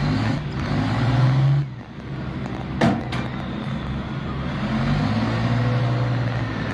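Large mining haul truck's diesel engine running under load as its dump bed is hoisted to tip. The engine swells about a second in, eases, then builds again from about five seconds, with two sharp knocks near three seconds.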